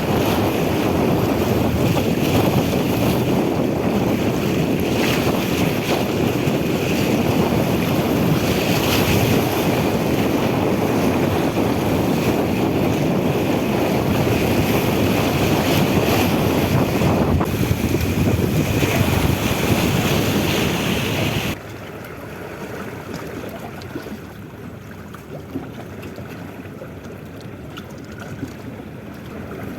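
Steady rush of wind on the microphone and water noise aboard a boat under way at sea. About two thirds of the way through it drops suddenly to a much quieter wash.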